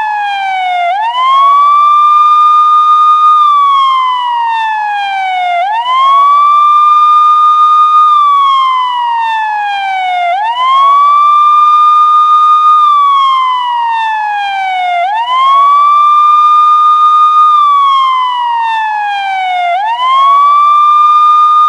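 Police car siren wailing. Each cycle rises quickly, holds its high note for a moment, then falls slowly before rising again, repeating about every four to five seconds.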